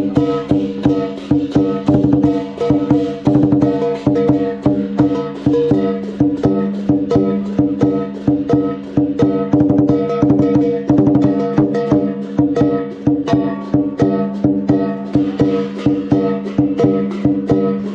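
Lion dance drumming: the large lion drum is beaten rapidly in a steady, driving rhythm, with ringing tones sustained under the strikes.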